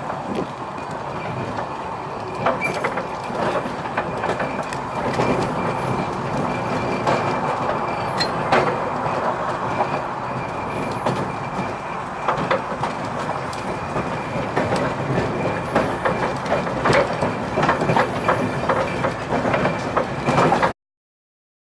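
Train running along the line, its wheels clattering over the rails with frequent irregular clicks and knocks over a steady rumble, and a faint high steady whine; the sound cuts off suddenly near the end.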